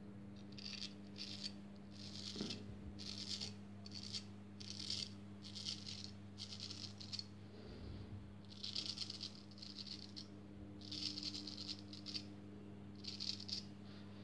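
Freshly honed straight razor scraping through lather and stubble on the neck in a series of short strokes, each a crisp rasp, coming in quick runs with short pauses between them.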